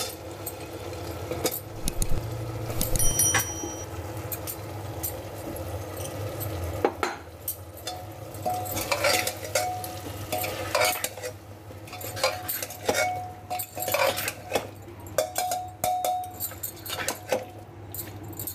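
A steel ladle stirs lotus stem and potato pieces through sizzling masala in a pressure cooker, scraping and clinking against the pot many times.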